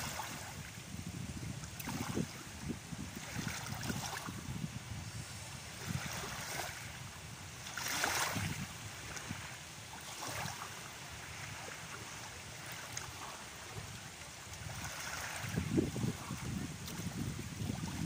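Small waves lapping and washing up onto a sandy shore, one wash every few seconds, with a low, gusty rumble of wind on the microphone.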